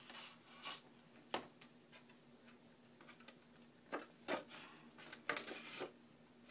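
Quiet rustling and scraping of paper pages as thread is pulled through the stitching holes in paper and drywall tape, with a sharp tick a little over a second in and a cluster of rustles between about four and six seconds in.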